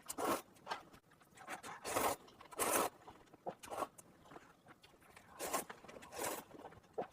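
A person slurping instant Lanzhou ramen noodles and broth, in a series of short slurps with pauses between them.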